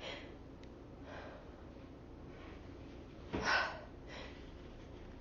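A woman's short breathy inhales and sniffs, with a stronger gasping breath about three and a half seconds in: the catching breaths of a sneeze building up.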